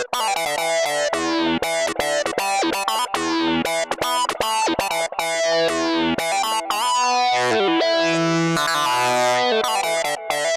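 Moog Voyager XL analog synthesizer playing a quick run of short, bright notes over bass notes. About eight seconds in, a longer, brighter held sound swells.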